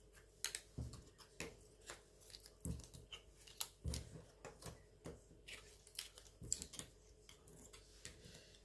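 Small plastic-bagged craft kits being handled and set down: faint, irregular light clicks, taps and rustles, with a few soft thumps.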